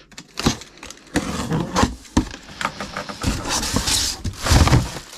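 Cardboard boxes and packaging being handled and opened: irregular knocks, scrapes and rustling, with a denser stretch of rustling near the middle.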